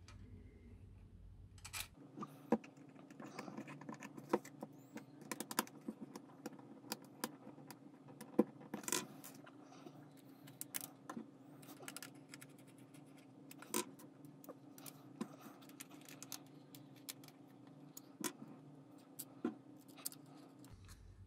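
Hands working on a plastic telescope-kit tube and its small screws and parts: scattered clicks, taps and light rattles, over a faint steady hum.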